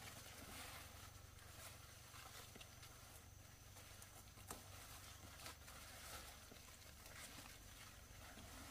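Faint rustling of squash leaves and vines, with a few light snaps, as a hand works among the plants.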